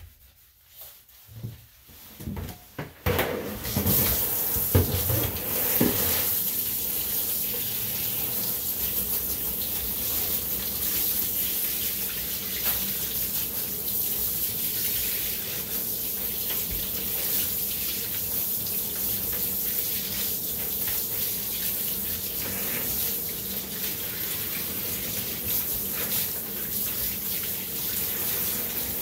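Handheld bathtub shower sprayer running, water spraying onto a wet dog and splashing into the tub as the dog is rinsed. A few light knocks come first, then the spray starts about three seconds in and runs steadily.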